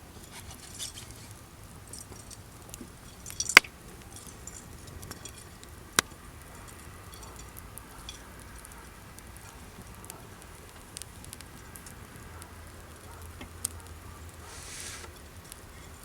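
Wood campfire crackling steadily, with sharp pops of burning wood bursting: a loud one about three and a half seconds in, another at six seconds and a smaller one near the end.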